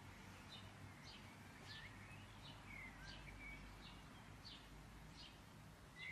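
Faint small-bird chirping in the background: short chirps and little falling notes, about one or two a second, over a low steady hum.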